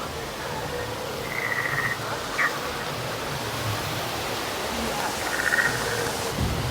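Two short, pulsing frog-like croaking calls, about a second in and again about five seconds in, over a steady background hiss.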